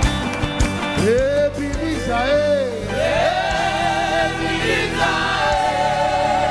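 Live gospel praise music: a band with drums under singers' sliding vocal runs, settling about three seconds in into held notes with vibrato, joined by a choir-like chord near the end.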